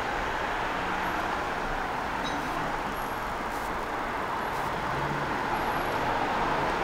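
Steady noise of road traffic on a busy city street.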